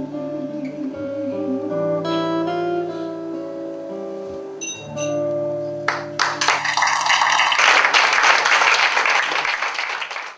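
Acoustic guitar playing the slow closing notes of a song, with plucked notes ringing out. About six seconds in, audience applause breaks out and carries on until it cuts off suddenly near the end.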